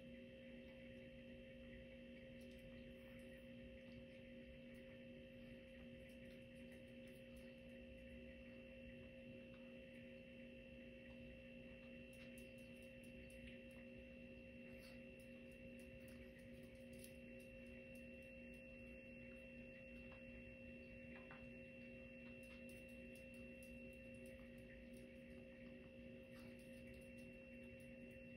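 Near silence with a faint steady hum of several held tones, and faint scattered ticks from about the middle onward.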